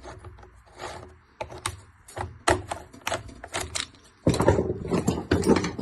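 Irregular sharp clicks and knocks of hard plastic and metal parts being handled on a Stihl TS 420 disc cutter, with a denser, louder stretch of rattling about four seconds in. The engine is not running.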